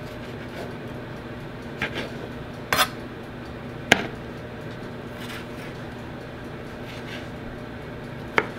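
Santoku knife chopping plums: a handful of sharp, unevenly spaced knocks of the blade striking the cutting surface, the loudest about four seconds in. A low steady hum runs underneath.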